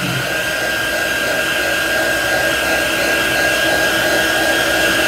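Handheld hot-air dryer running steadily, a blowing rush with a constant fan whine, drying freshly applied chalk paste on a wooden sign.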